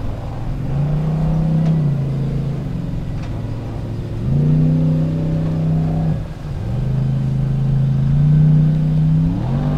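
Off-road competition jeep's engine revving in repeated hard surges as it climbs a steep dirt slope: the pitch rises as the throttle opens, holds, then drops away as it lifts off, about three times, with a new rise near the end.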